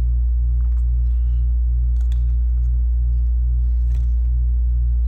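Air-conditioning unit running with a loud, steady low hum and a regular pulsing throb, with a few faint clicks from small parts being handled.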